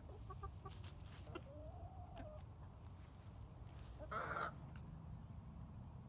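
Hens clucking softly: a quick run of short low clucks at the start, a single rising-and-falling note around two seconds in, and a louder, longer call about four seconds in.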